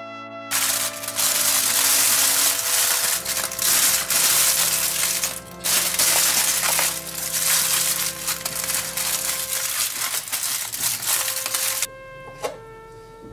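Background music with a loud crackling, crunching noise over it that starts about half a second in and cuts off abruptly shortly before the end.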